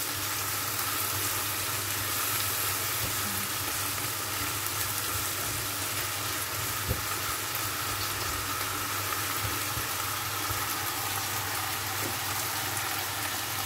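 Pak choi and mushrooms sizzling steadily in a nonstick wok as they are stir-fried, turned with a silicone spatula that gives a few faint taps. A steady low hum runs underneath.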